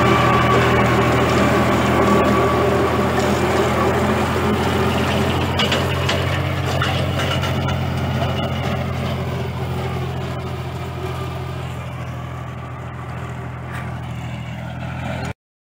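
Tractor engine running steadily under load while it drives a sugarcane weeding and hoeing implement that churns soil between the rows, with a steady whine in the mix. The sound grows gradually quieter from about halfway and cuts off abruptly near the end.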